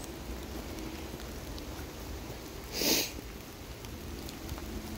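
Steady rain falling, with one short, loud sniff from a person about three seconds in.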